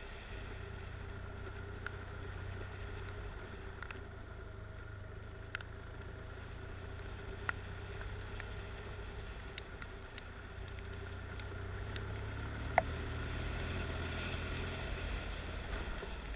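Adventure motorcycle engine running steadily while riding a rough dirt forest road, with a handful of sharp knocks from the bumpy track; the loudest knock comes about 13 seconds in.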